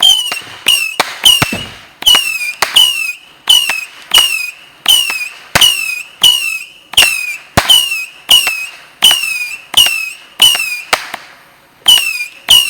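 Consumer multi-shot firework cake firing in rapid succession, a sharp bang roughly every 0.7 seconds, each followed by a short whistle falling in pitch. The shots pause briefly about eleven seconds in, then go on.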